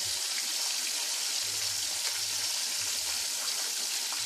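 Pork chops frying in a pan of canola oil: a steady sizzle with faint scattered crackles.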